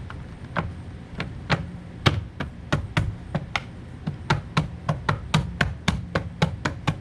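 Plastic wheel cover being pressed and tapped onto a car wheel by hand: a string of sharp plastic knocks, spaced out at first, then coming about four a second in the second half.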